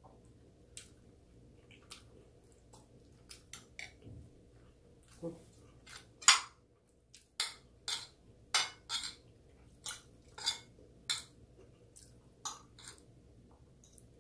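Cutlery clinking and scraping against a plate while eating: short, sharp taps, a few scattered at first, then a steady run of a dozen or so, the loudest about six seconds in.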